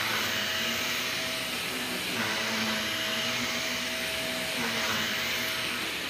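Cordless stick vacuum running on a rug: a steady motor whine over a hiss of rushing air, its lower tone shifting slightly every couple of seconds as the head is pushed back and forth.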